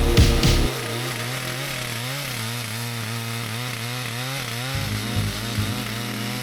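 Chainsaw running in a cut on a chainsaw mill with a 48-inch bar, its engine pitch wavering up and down about twice a second.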